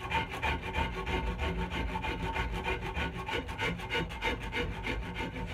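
A hand rasp shaping a hickory axe handle's palm swell, with quick, even scraping strokes, several a second, that round off the corners left by the bandsaw.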